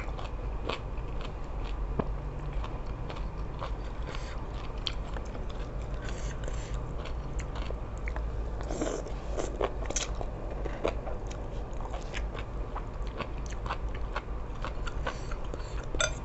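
A person chewing seafood suki close to the microphone, with many irregular wet mouth clicks and smacks.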